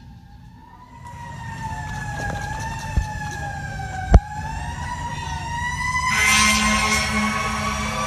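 Fire engine siren wailing in a slowly wavering tone, joined about six seconds in by a loud, blaring fire-engine air horn blast. A sharp click near three seconds and a loud knock just after four seconds.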